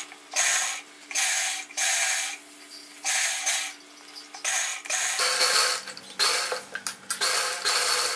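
Sewing machine stitching through cloth in a string of short runs, each a second or less, with brief pauses between them.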